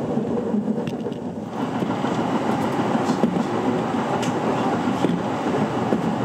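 Steady running noise inside a moving train carriage, a dense rumble with faint ticks, growing louder about a second and a half in.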